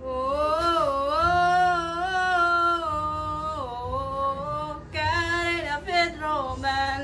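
A woman singing a drawn-out tune, holding long notes that glide up and down for the first few seconds. After a short break about four seconds in, she sings a run of shorter notes.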